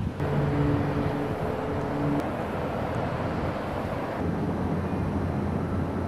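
Steady outdoor rumble and hiss with a faint low hum beneath, changing abruptly about a quarter-second in and again about four seconds in.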